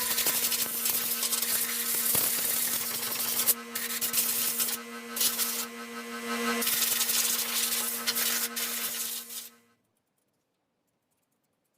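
A power tool running with a steady hum and a rasping, grinding noise over it, which cuts off suddenly about nine and a half seconds in, leaving silence.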